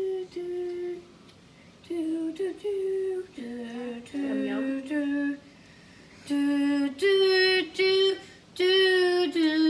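A young child singing a wordless tune in short held notes with pauses between them, the notes growing louder and brighter in the second half.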